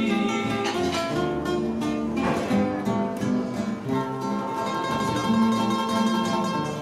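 Music: an instrumental passage of a Spanish-language song, played on plucked and strummed acoustic guitars.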